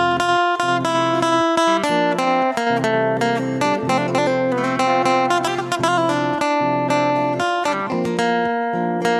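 Background music played on acoustic guitar: a steady run of plucked notes, several a second.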